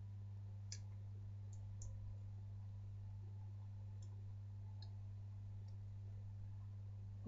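A steady low hum with a few faint, short clicks scattered through it.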